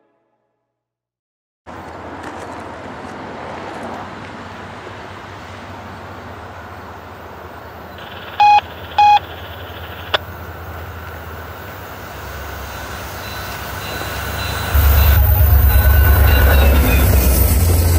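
VIA Rail F40PH-2D diesel locomotives, with EMD 16-645 two-stroke V16 engines, approaching and passing at track speed. The low engine rumble grows through the second half and turns loud near the end as the lead unit goes by. Around the middle there are two short, loud beeps about half a second apart.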